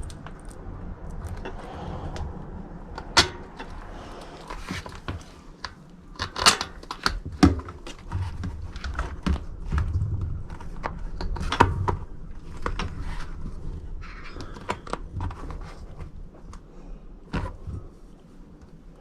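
Hands handling a bicycle wheel and a tubeless valve while fitting the valve into the rim: irregular small clicks, taps and knocks of metal and plastic parts.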